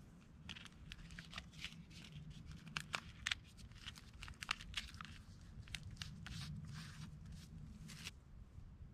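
Two plastic flip phones handled against the dry bark of a fallen log as they are wedged in place: faint, irregular clicks, scrapes and crackles of plastic and bark, which stop about eight seconds in.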